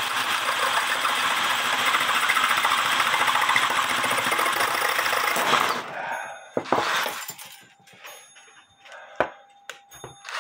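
DeWalt 20V cordless drill running under load, its bit boring through the hardened steel of a clock mainspring, steady for about five and a half seconds and then stopping. A few sharp knocks and clicks follow as the drill is lifted and set down.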